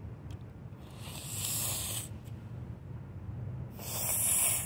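A person blowing her nose hard twice, two hissing blasts of air about a second long each; her nose is running and clearing from eating spicy-hot food.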